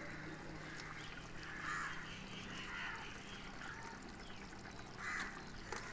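Raw chicken pieces dropped by hand into boiling biryani gravy in an aluminium pot, with soft wet splashes and the gravy bubbling. Two brief faint calls can be heard, one a little under two seconds in and one about five seconds in.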